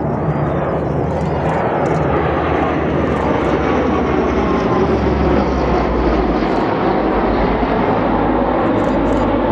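Turboprop engines of a formation of three Transall C-160 military transports, with a steady loud drone as they pass overhead. A deeper low rumble builds from about five seconds in.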